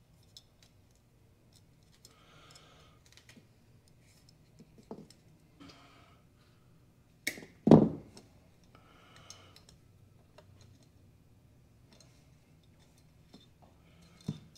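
Small clicks and rustling as thin wire is handled and wrapped around a rusted cast-iron toy cap gun frame on a felt mat. There is one louder knock a little past halfway and a smaller one near the end.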